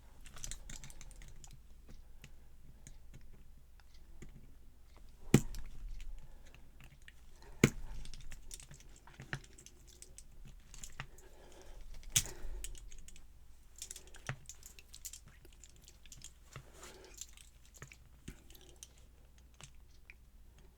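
Small metal clicks, taps and scraping of a tool working at a padlock's retaining clip to pry it off. Three sharper, louder clicks come about five, seven and a half and twelve seconds in.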